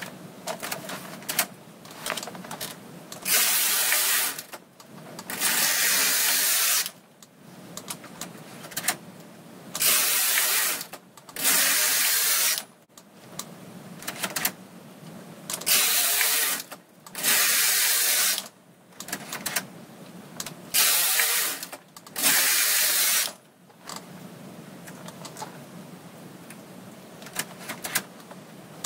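Carriage of a Brother KH710 push-button knitting machine pushed back and forth across the needle bed while knitting a test swatch after servicing. Each pass is a loud clattering run of about a second, eight passes in quick pairs, with quieter clicks between them and a quieter stretch near the end.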